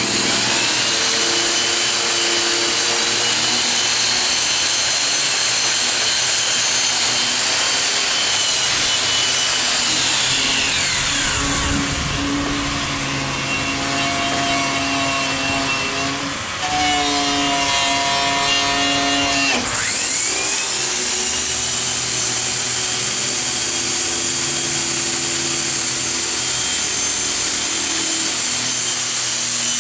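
Angle grinder grinding the riveted metal roof of a caboose: a steady high whine with grinding noise. About ten seconds in it is switched off and winds down while a second grinder keeps running, and at about twenty seconds it is switched back on and spins up to full speed.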